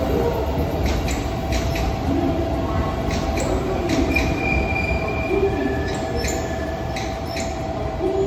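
Train running on the rails with a steady rumble and hum, scattered clicks, and a brief high wheel squeal about four seconds in, followed by a lower squeal around six seconds in.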